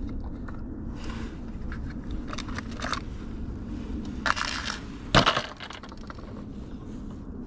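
Lures and hooks clicking and rattling against the plastic compartments of a Plano tackle box as a jig is picked out, then one loud sharp snap about five seconds in as the box's lid is shut.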